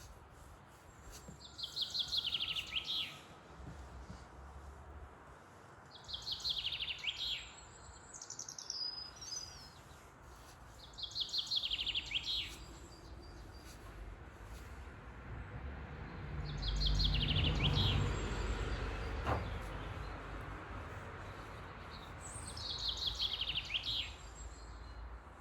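A songbird singing the same short phrase five times, about every five seconds, each a quick run of notes that falls in pitch. About two-thirds of the way through, a low rumble rises and fades under the song.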